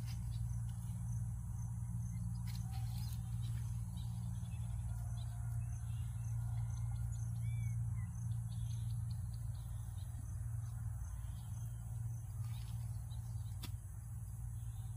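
Scattered faint bird chirps over a steady low hum.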